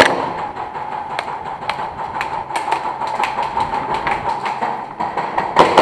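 Airsoft gunfire: rapid full-auto clicking shots, with a loud burst near the end. In between, a steady mechanical whine carries lighter rapid ticking.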